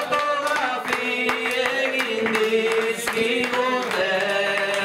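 A bertsolari sings an improvised Basque verse solo and unaccompanied into a microphone, holding long, slowly gliding notes. Small clicks are scattered through it.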